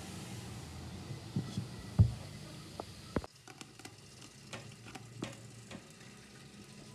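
Kitchen utensil knocking against a cooking pan, several separate knocks with the loudest about two seconds in, over a low steady hum; the background drops off abruptly about three seconds in, leaving only faint ticks.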